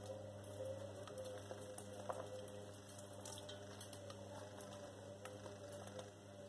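Sliced onion being dropped by hand into a pan of sauce, with scattered soft clicks and small wet splashes over a steady low hum.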